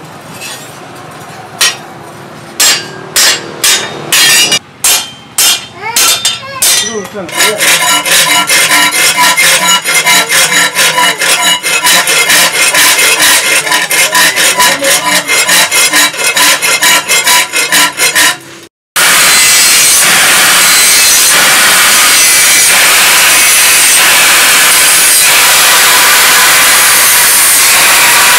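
A hand file rasps across the edge of a steel cleaver blade clamped in a vise, first in a few irregular strokes and then in quick, even back-and-forth strokes, with the blade ringing. After a sudden break a little past two-thirds of the way in, an angle grinder with a flap disc runs steadily, grinding the blade.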